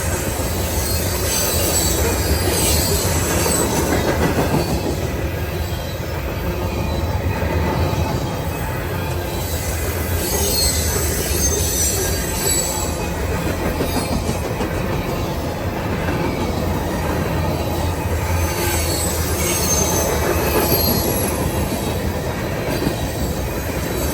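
Cars of a long CSX merchandise freight train rolling past: a steady rumble of steel wheels on the rail, with high-pitched wheel squeal coming and going again and again.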